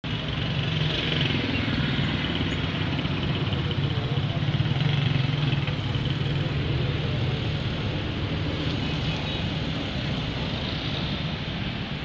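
Diesel engine of a pneumatic-tyred road roller running steadily as the roller drives over freshly laid asphalt, a steady low hum that swells a little midway and eases slightly toward the end.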